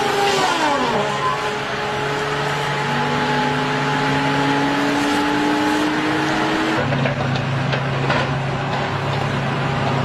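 Wheeled feller buncher running as it cuts standing pines: diesel engine and disc saw head, with a whine that drops in pitch about a second in and then climbs slowly. Near seven seconds in the sound switches abruptly to a steadier low engine drone.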